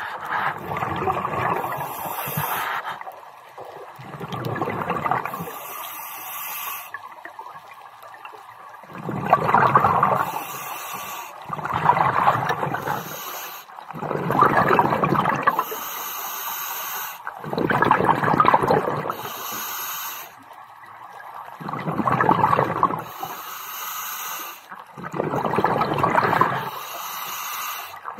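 A scuba diver breathing through a regulator underwater: a rush of exhaled bubbles about every three to four seconds, each followed by a short high hiss as the regulator delivers the next breath. About eight breaths in all.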